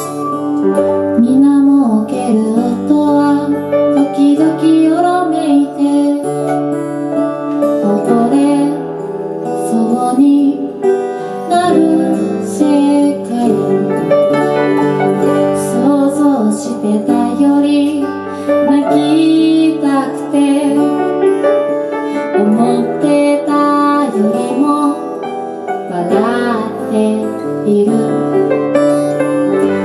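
Live acoustic song: a woman singing, accompanied by acoustic guitar and piano.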